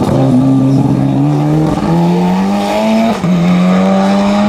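Racing touring car's engine accelerating hard up the hill, its pitch climbing steadily and dropping back at an upshift about two seconds in and again about three seconds in.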